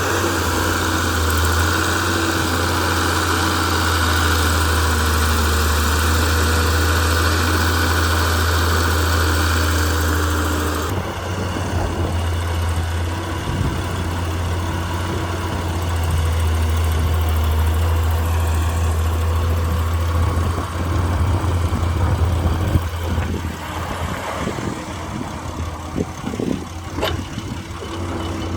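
Heavy diesel engine of a dump truck or excavator running steadily with a deep hum. A high hiss over it stops abruptly about eleven seconds in, and scattered knocks and rattles come near the end.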